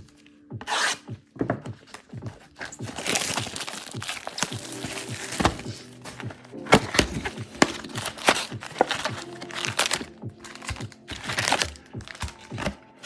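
Plastic wrapping being torn and crinkled as a sealed box of trading cards is opened, with knocks and rubbing from handling the box, over background music.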